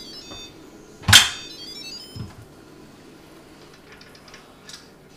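An Instant Pot electric pressure cooker's lid being unlocked and lifted: a loud clunk of the lid about a second in, followed by the cooker's short electronic chime of rising notes, and a few faint clicks as the lid comes off.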